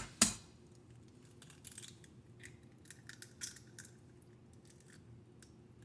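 Eggs being cracked: two sharp taps of shell against a bowl's edge, then faint scattered clicks and crackles of shell.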